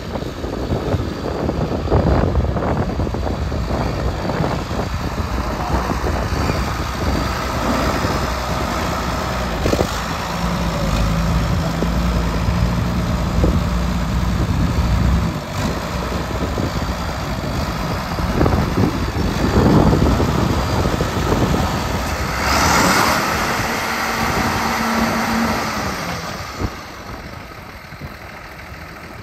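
John Deere 4430 tractor's six-cylinder turbocharged diesel engine running as the tractor is driven around, its pitch shifting with the throttle, growing fainter near the end.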